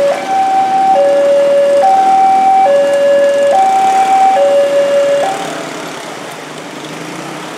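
Railway level-crossing alarm sounding a loud two-tone high-low signal, each tone held about 0.8 seconds. It cuts off about five seconds in as the barrier rises and the crossing opens, leaving the running of motorcycle and car traffic.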